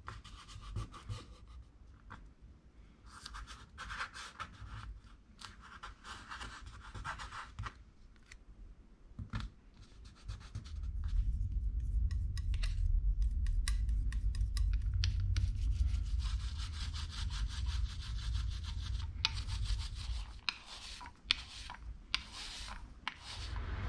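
Fingers rubbing and scratching strips of masking tape down onto a wooden panel. About eleven seconds in, a louder, steady rolling rumble with a crackly edge begins, as a sponge roller spreads tacky acrylic paint over the board.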